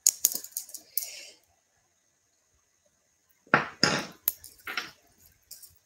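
Glass and stone beads and metal jewelry clinking and clicking as they are handled, in short clusters with a gap of about two seconds in the middle; the loudest clicks come about three and a half seconds in.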